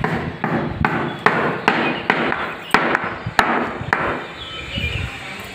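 A run of about ten sharp knocks, roughly two to three a second, that stops about four seconds in.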